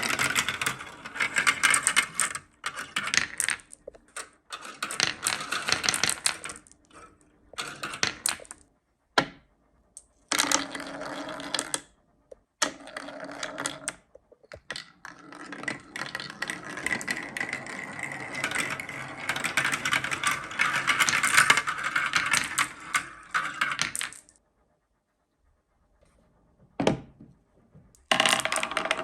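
Marbles rolling and clattering down a handmade marble run track, a dense run of rattling clicks in stretches of a few seconds that stop and start abruptly. Near the end it drops out for about three seconds, with a single sharp click, then the clatter resumes.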